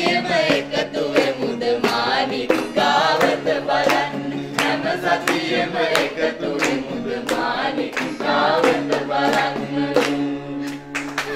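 A song sung by several voices over a steady drone, with regular sharp beats of drum or handclaps keeping time.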